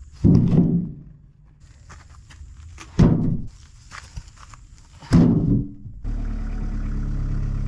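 Three heavy thuds, a couple of seconds apart, each dying away quickly; about six seconds in, an engine starts running steadily at a low, even pitch.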